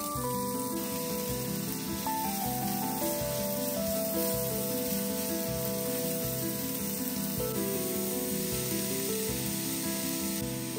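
Background music with slow held notes, over a steady sizzle of chopped onion frying in oil in a frying pan.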